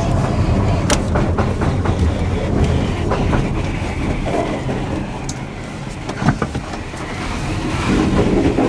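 Ride noise inside the cab of a lowered electric kei mini truck on the road: a steady low rumble of tyres and road with scattered knocks and rattles from the bouncing suspension and body, a sharper knock about a second in and another around six seconds.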